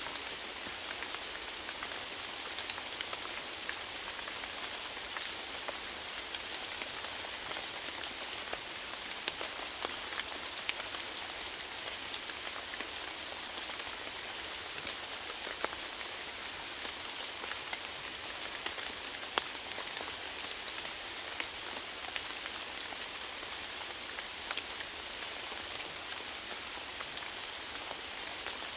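Steady rainfall, a constant hiss with many separate drops pattering on a surface.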